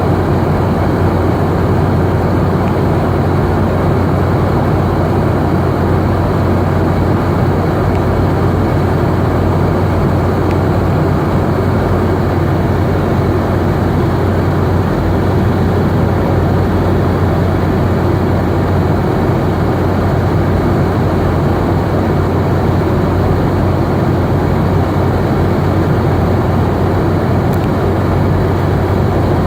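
Steady cabin noise of a Boeing 717 in flight: its rear-mounted Rolls-Royce BR715 turbofans and the rushing air make a constant, loud noise with a low hum underneath, unchanging throughout.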